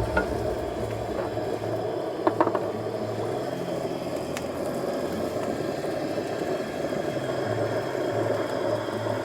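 Food frying in a pan on a camp stove: a steady sizzle, with a couple of sharp clicks about two seconds in.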